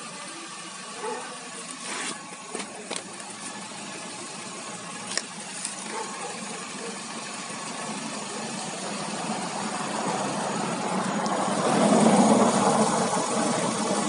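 A Chevrolet Aveo 2018.5 engine running while driving, with steady road and engine noise that swells to its loudest about twelve seconds in, plus a few short clicks near the start.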